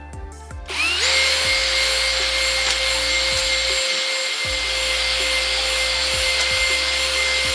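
Cordless drill spinning a spring-loaded stone cylinder hone inside a cast-iron cylinder bore of a Toyota 1KZ block: the drill speeds up about a second in, then runs at a steady pitched whine over the rasp of the hone stones scrubbing the cylinder wall. The hone is cutting a fresh cross-hatch into the bore.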